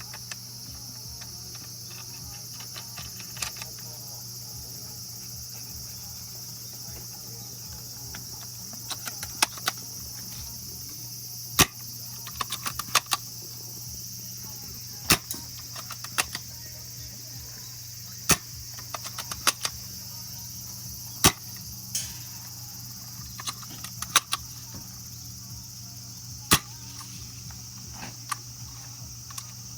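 Tokyo Marui VSR-ONE spring-powered bolt-action airsoft rifle fired again and again, sharp snapping shots every two to three seconds from about nine seconds in, with smaller clicks between them. Behind them runs a steady high-pitched chirring and a low hum.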